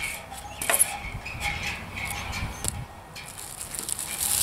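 Cardboard packing pieces and a plastic-wrapped aluminium flagpole section being handled during unpacking: light rustling with scattered clicks and knocks, one sharper knock about a second in.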